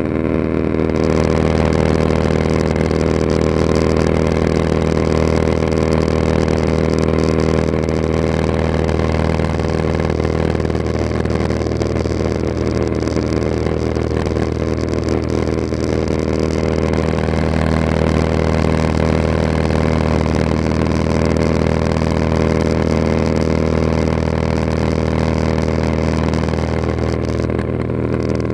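Cessna 182RG's six-cylinder piston engine and propeller running steadily in flight, heard inside the cabin as a constant drone.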